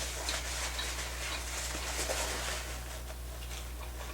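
Close-up chewing of sushi: soft, irregular wet crackles and clicks of mouth and food, over a steady low electrical hum.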